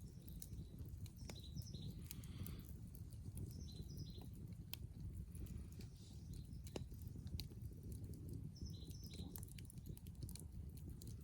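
A bird calling a short, high phrase of a few quick notes, three times, over a steady low rumble.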